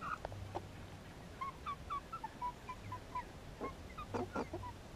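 A flock of chickens making soft, short clucking calls close by, with a quick string of small calls in the middle and a few faint taps.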